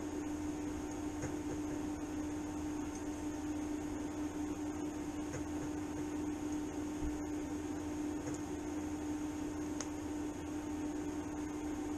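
TIG welding set running while welding thin sheet steel, giving a steady hum over an even hiss that does not change when the arc goes out.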